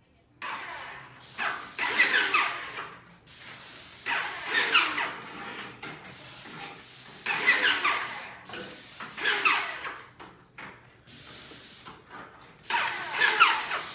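Paint spray gun hissing in repeated bursts of one to two seconds as it sprays paint onto cabinets. The trigger is released for brief gaps between passes.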